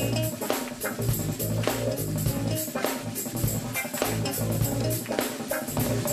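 Live band music: drum kit keeping a steady beat over a bass line.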